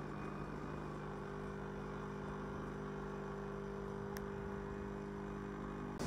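Nespresso Vertuo Plus capsule coffee machine at the start of a brew: a steady motor hum made of a few low tones, with one more tone joining about a second in. A light click sounds about four seconds in.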